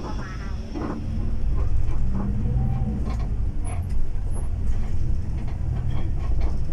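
Tour coach running, its engine and road rumble heard from inside the passenger cabin, with a few brief sharper sounds over it.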